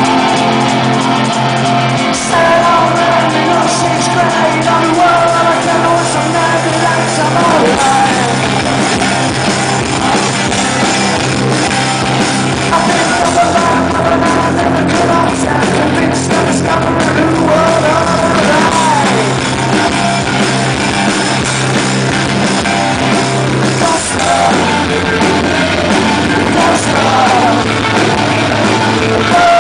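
Rock band playing live: electric guitars and bass guitar over drums, with a singer's voice.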